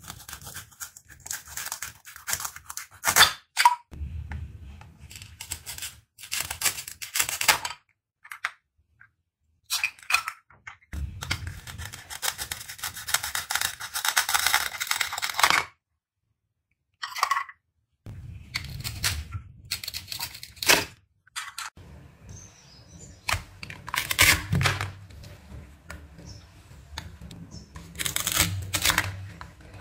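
Velcro-joined plastic toy fruits being cut with a plastic toy knife: the velcro rips as the halves pull apart, mixed with clicks and clatter of plastic pieces on plastic cutting boards. It comes in separate bursts, with a few seconds of silence twice.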